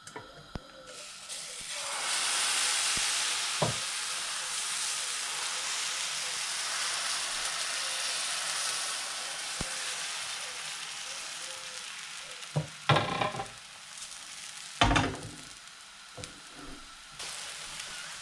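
Crepe batter sizzling in a hot oiled frying pan. The sizzle swells about a second in as the batter hits the oil, then slowly dies down. In the second half come a few knocks and scrapes of a spatula against the pan, working loose a first crepe that sticks.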